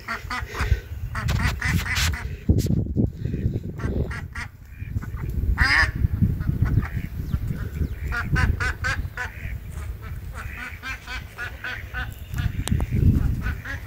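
Ducks quacking again and again in short calls, with wind buffeting the microphone.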